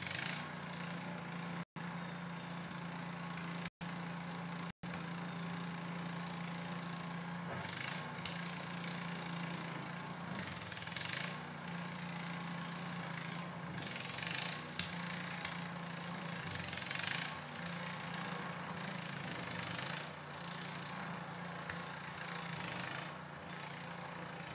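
An engine running steadily with a constant low hum, with brief hissing swells every few seconds. The sound cuts out briefly three times in the first five seconds.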